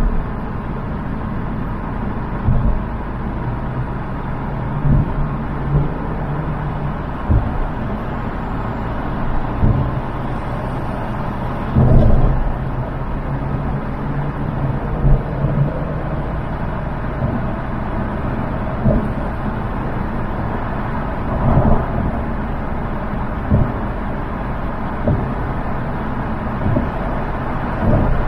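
Car driving at freeway speed: steady road and engine hum with irregular low thumps every couple of seconds, the loudest about twelve seconds in.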